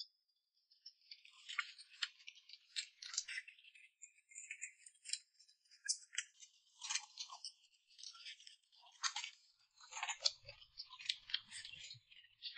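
Faint eating noises at a table: irregular small crisp clicks and crunches of chewing and chopsticks.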